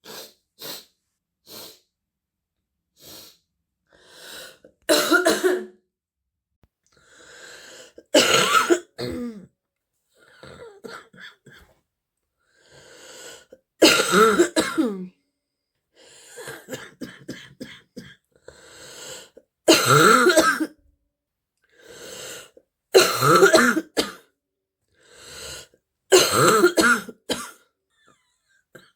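A girl with a heavy chest cold coughing in repeated fits: a very deep, barking cough, with quieter coughs and breaths between the loud fits. The cough goes with a stuffy, wheezy cold.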